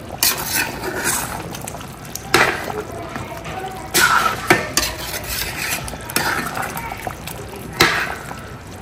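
A spoon stirring thick chicken curry gravy in a large metal pot: wet slopping of the gravy, with several sharp knocks and scrapes of the spoon against the pot at irregular moments.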